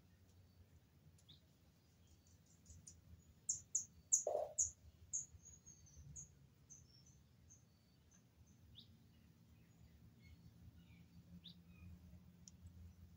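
A bird calling a run of short, high notes that come close together at first, then spread out and fade over several seconds, with a few single chirps afterwards. About four seconds in, a brief, louder, lower-pitched sound cuts across the notes.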